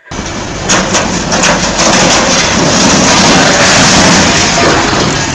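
A tall steel grain conveyor toppling and crashing down at a grain elevator. It makes a loud, distorted rumbling rush with crackles through the first couple of seconds.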